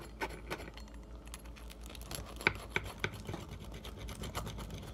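Wheel pizza cutter rolling through a baked stuffed-crust pizza: a run of small irregular crackles and scrapes, with a couple of sharper clicks about halfway through.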